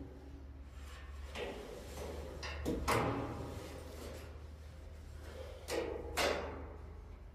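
Metal clanks and knocks from chain-and-strap rigging on a steel pallet-rack frame, a handful of separate hits with short ringing tails, the loudest about three seconds in and two more around six seconds. A steady low hum runs underneath.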